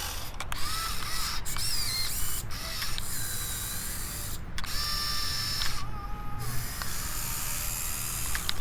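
Top Race RC excavator's small electric gear motors whirring in a series of short runs with brief stops between them, the whine's pitch shifting from run to run.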